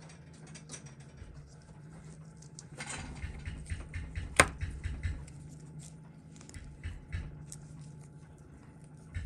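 Fingers pressing a domed crystal out of a stainless steel Seiko 6139 watch case: small scrapes and ticks, then one sharp click about four and a half seconds in as the crystal pops free. A low steady hum runs underneath.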